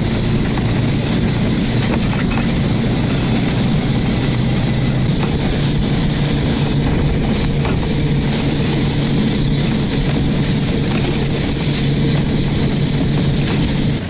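Engine of a Barbos motorized ice tow (motodog) running steadily at travel speed, towing a sled over snow and ice, with a constant low drone and a hiss of wind and snow.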